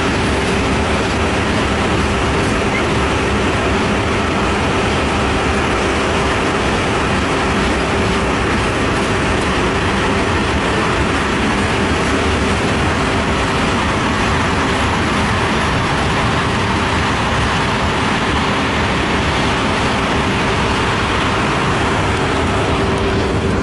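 Freight train rolling past: a steady rumble of wheels on rail with one constant tone held throughout.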